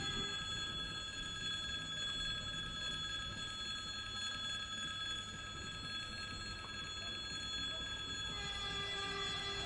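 Level-crossing warning signal sounding as a steady ringing tone while the crossing is closed for an approaching train, over a low rumble. About eight seconds in, more tones join and the sound grows fuller.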